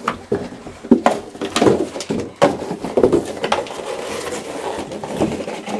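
A coyote rummaging and tearing at a box stuffed with paper towel: scratchy rustling and tearing with irregular sharp knocks as she works to get the mice out.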